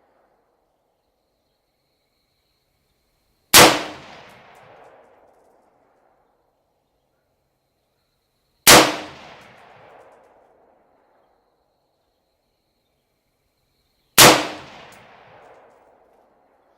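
Three single gunshots from an AR-15 pistol with a 10.5-inch barrel firing .223 Remington, about five seconds apart. Each is a sharp crack followed by an echo that dies away over a second or two.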